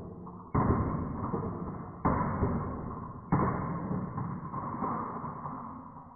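Marbles rolling and clattering down a wooden HABA marble run, with a fresh burst of rattling about half a second, two seconds and three seconds in, dying away near the end.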